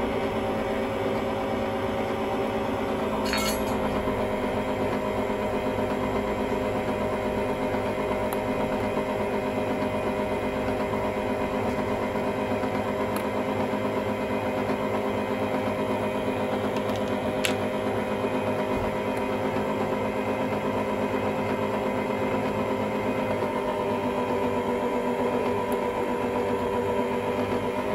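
Khind SM506P stand mixer's motor running at a low speed setting with an empty bowl: a steady mechanical whine that dips slightly in pitch near the start and again late on as the speed dial is worked. Two brief sharp clicks sound over it, one a few seconds in and one past the middle.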